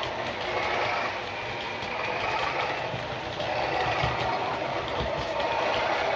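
DCC sound decoder in a Bachmann OO gauge Class 37 model playing the diesel's engine sound, running steadily under power. Light ticking from the model coaches' wheels on the track comes through underneath.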